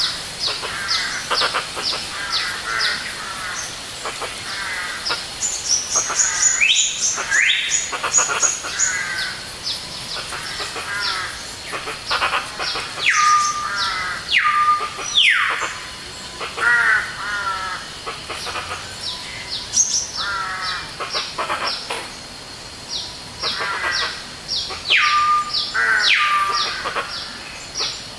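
Several birds calling and singing together in a forest chorus, with rapid series of short high notes and warbling phrases. A louder call that slides down and ends on a held lower note comes in pairs three times.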